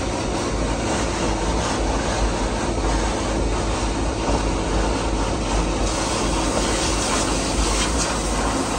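Sewer vacuum truck running, its suction hose drawing sludge from a manhole as a steady low rumble with a rushing suction noise. From about six seconds in, the hiss of water spraying from a jetting nozzle joins it.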